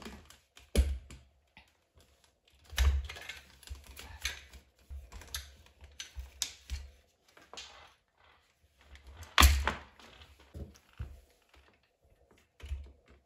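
Irregular plastic and metal clicks, clacks and knocks of a lightweight folding sack truck being handled and unfolded, its telescopic handle raised and the frame set on the floor. The two loudest knocks come about a second in and about two-thirds of the way through.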